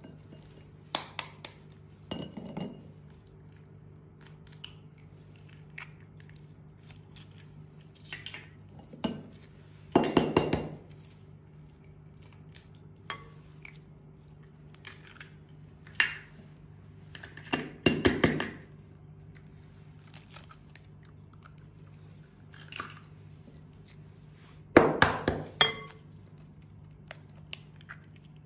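Raw eggs being cracked into a glass mixing bowl: sharp taps and clinks against the glass and the crunch of shells breaking open, in separate bursts every few seconds.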